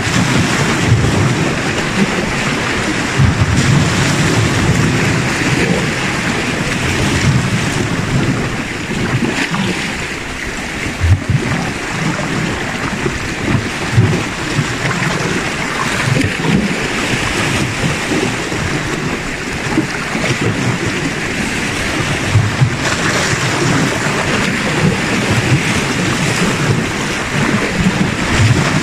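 Small sea waves washing and splashing against shoreline rocks, a steady rush with wind rumbling on the microphone in uneven gusts.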